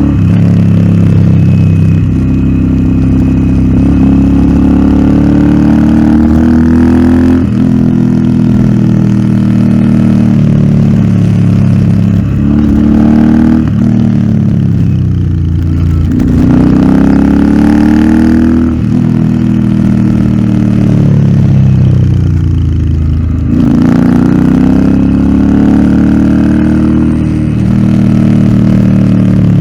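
Royal Enfield Interceptor 650's 648 cc parallel-twin engine, breathing through an aftermarket Nuke exhaust, pulling up through the revs and dropping back again and again under riding through corners. The pitch rises in long sweeps, with sudden drops about every few seconds at gear changes or when the throttle is rolled off.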